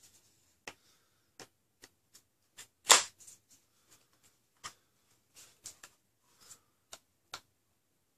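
Scattered light clicks and taps of plastic and metal blaster parts being handled as a red metal barrel is fitted into a clear plastic blaster shell, with one sharp, louder click just before three seconds in.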